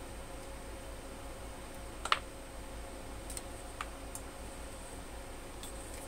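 A few short clicks from hands working bench test equipment, the loudest sharp one about two seconds in and fainter ones later, over a steady electrical hum with a faint high whine.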